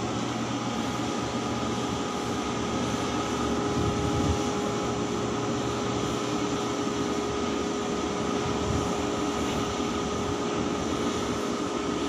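Heavy diesel machinery running steadily: an even engine drone with a constant high whine over it.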